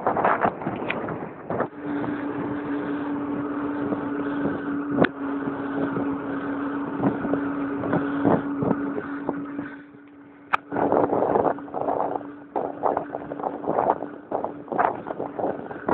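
Wind buffeting the microphone of a camera on a moving bicycle, with a steady low hum from about two seconds in and scattered clicks and rattles. The wind drops briefly about ten seconds in.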